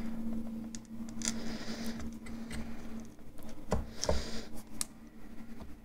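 Light scraping and small clicks of a flat metal spatula working under eyeshadow pans in a plastic palette, prying at pans whose glue has been loosened with brush cleaner. A steady low hum runs under the first three seconds.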